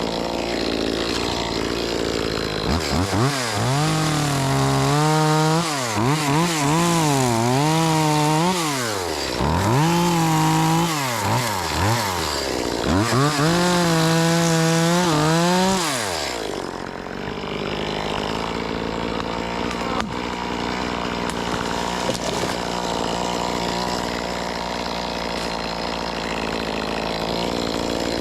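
Top-handle chainsaw cutting wood. Its pitch drops and climbs again several times in the first half as the chain bogs into the cut and frees up. After that it runs more steadily.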